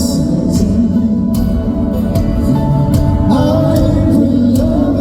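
Live band playing a slow folk-pop song, with guitar and a sung melody over a steady low accompaniment.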